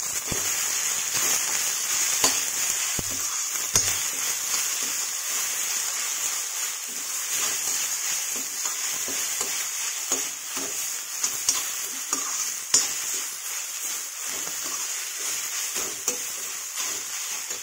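Green onions and crumbled horse-gram (kulth) dal batter sizzling steadily in a hot metal kadai as they are stir-fried. A slotted metal spatula scrapes and clicks against the pan now and then.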